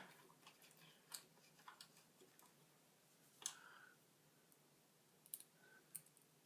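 Faint, scattered clicks and ticks of a small screwdriver and screws being worked into a laptop's bottom panel, with one sharper click about three and a half seconds in.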